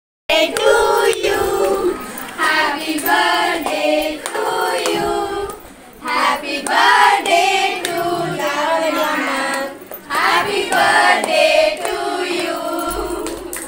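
A group of women singing a birthday song together, loud and close to the microphone, in phrases with a couple of short breaks.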